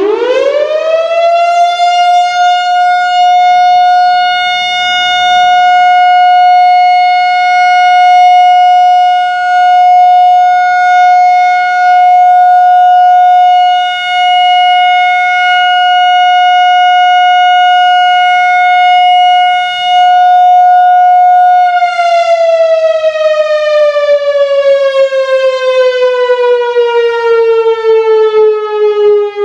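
Whelen WPS-4004 outdoor warning siren sounding its steady Alert tone. It climbs quickly to one held pitch, holds it for about twenty seconds, then begins a slow wind-down with the pitch falling steadily.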